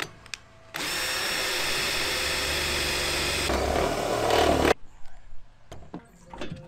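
Cordless drill boring a 20 mm hole through the van's sheet-metal roof: the drill runs steadily for about three seconds, then goes louder and coarser for about a second before stopping suddenly. A few small clicks follow.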